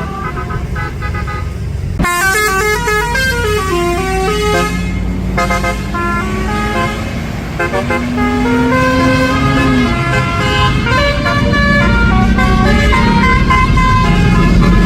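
Tour bus telolet (Basuri) horn playing quick, stepped multi-note melodies, much louder from about two seconds in, over the bus engine's hum, which rises slowly in pitch.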